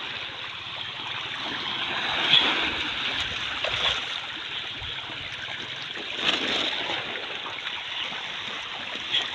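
Continuous splashing and churning of a crowd of pangas catfish thrashing at the surface of a pond, with louder splashes about two and a half seconds in and again a little after six seconds.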